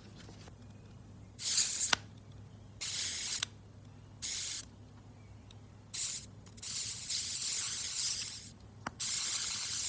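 Compressed air hissing out of an aftermarket metal PCV valve in six short bursts as a screwdriver pushes the valve open, the last two bursts longer. The valve opens and vents the pressure held in it from a tyre inflator, showing that it works.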